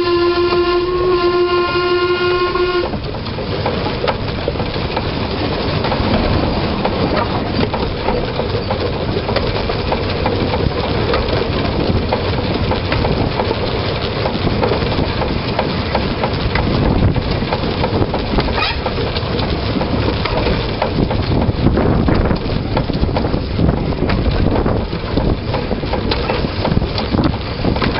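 Narrow-gauge steam locomotive's whistle sounding one long note that cuts off about three seconds in, then the locomotive running steadily along the track with wheel and rail noise and occasional clicks.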